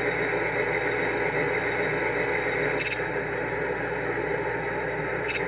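Alco diesel locomotive engine sound played by a Railpro sound decoder through the small speaker of a G scale battery car, running steadily at speed with a hissy, engine-like drone. Two faint ticks, about three seconds in and near the end.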